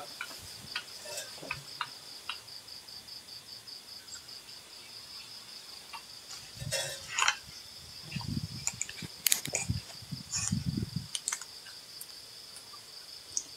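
Steady insect chirping, a high note pulsing several times a second, with scattered sharp clicks and a few low muffled thumps and rustles in the second half.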